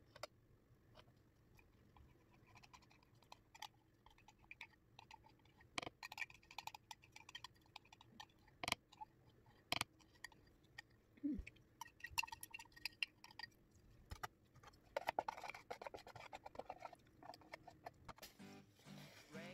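Scattered light clicks and taps of a metal spoon against a plastic yogurt tub and cup as a thick creamy sandwich-spread mixture is poured and stirred.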